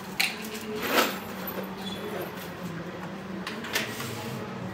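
Packing tape and paper being pulled off an air-conditioner unit, heard as a few short tearing rasps over a steady low hum.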